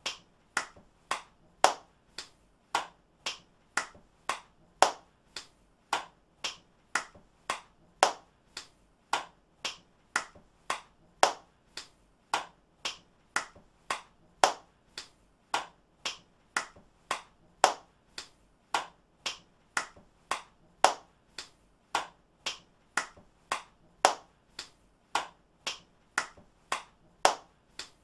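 One person's hands clapping in a steady rhythm, about two sharp claps a second, some claps louder than others.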